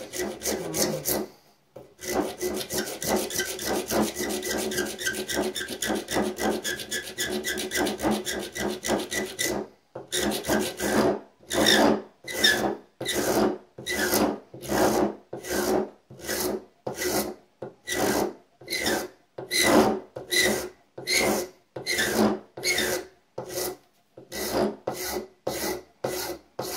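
Hand file rasping across the edge of a razor-scale blank held in a bench vise. The strokes are quick and short at first, then after a brief pause they become long, even strokes at about two a second.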